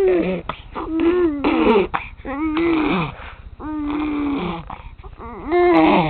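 A ten-month-old baby girl making a funny noise to deal with teething pain: a string of about five short vocal sounds whose pitch bends up and down, some of them rough and breathy, with brief gaps between.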